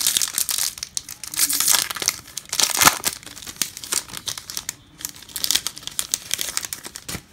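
A 2022 Topps Holiday baseball card pack's wrapper being torn open and crinkled by hand: a run of crackly rustles, loudest two to three seconds in, with a second flurry about five seconds in.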